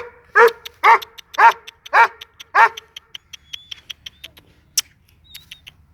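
Gultair dog barking, about six loud barks roughly half a second apart that stop near the middle, with scattered short clicks around them.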